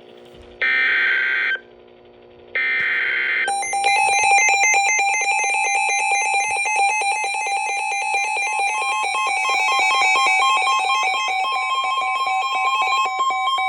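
NOAA Weather Radio emergency alert opening with two short buzzy bursts of header data tones, then a long electronic alarm tone that warbles rapidly between pitches. A second steady tone joins about nine seconds in, announcing a severe thunderstorm warning.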